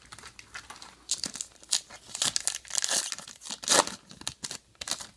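Wrapper of a Topps trading card pack crinkling and tearing as it is pulled from the box and ripped open by hand: a run of irregular crackles, loudest a little past the middle.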